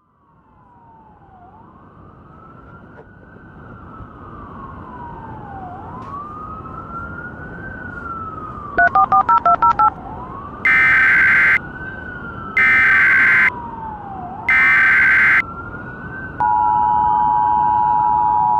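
Mock Emergency Alert System tones: a wailing siren fades in and sweeps slowly up and down, with a quick run of touch-tone beeps about nine seconds in. Three short bursts of EAS header data tones follow about a second apart, and at about sixteen seconds the steady two-tone EAS attention signal starts.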